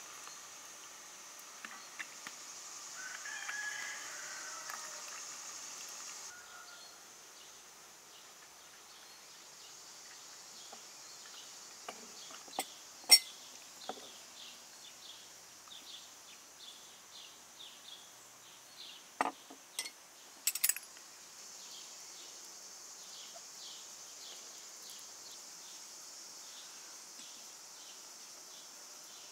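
Outdoor rural ambience: a steady high insect drone with regular faint chirps, a short bird call a few seconds in, and a handful of sharp clinks, the loudest a little before the middle.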